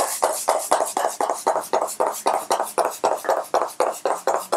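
MAC Fix+ setting spray (gold formula) being pump-misted onto the face in a rapid run of short hissing sprays, about four a second, stopping near the end.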